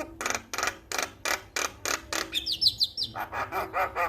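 Male Javan myna (jalak kebo) singing. It gives a series of harsh, rasping notes about three a second, breaks into a few quick rising whistles a little past two seconds in, then goes back to harsh notes.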